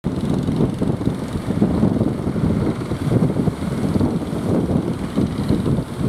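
Strong wind buffeting the microphone: a loud, uneven low rumble.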